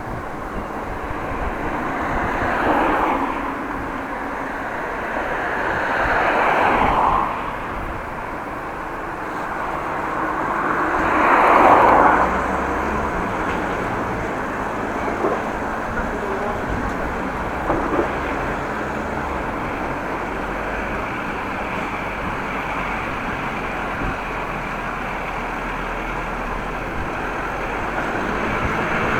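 Road traffic passing a cyclist: about three vehicles swell up and fade away in turn, over a constant rush of wind and riding noise on the action camera's microphone.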